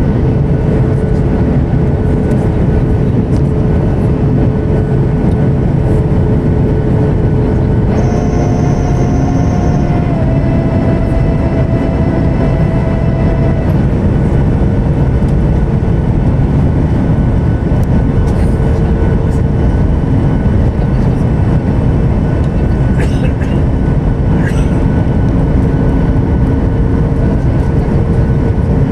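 Airliner cabin noise: the steady rush of jet engines and airflow heard from inside the cabin, with a low steady hum and held tones. About eight seconds in a higher tone joins, dips slightly, and stops a few seconds later.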